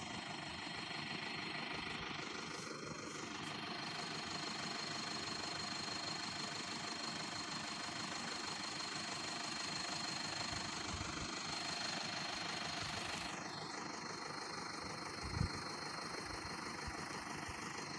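Toyota Hilux pickup engine idling steadily while the truck sits stuck in mud, with a single short thump about fifteen seconds in.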